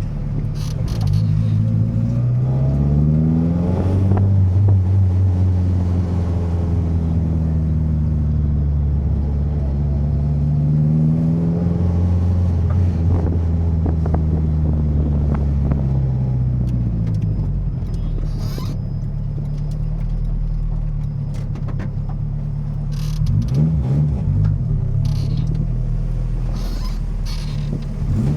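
Turbocharged Honda B16 four-cylinder engine in an Integra, its pitch rising, holding and falling again several times as it is revved and let off. A few short sharp noises come in the second half.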